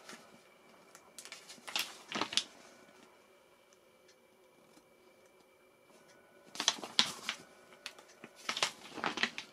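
Paper pages of a printed instruction booklet being turned and rustled by hand, in two bouts: one about a second in, the other from about six and a half seconds in until near the end, quiet in between.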